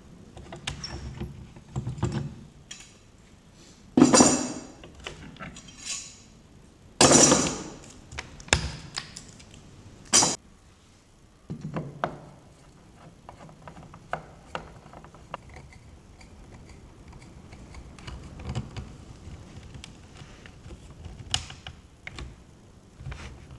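Workshop handling of tools and the glued table leg: scattered clicks and knocks, with three loud short rasping bursts about 4, 7 and 10 seconds in.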